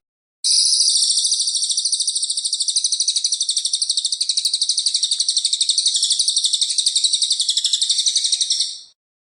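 Cililin bird singing one long, very fast, high-pitched trill that fades out near the end.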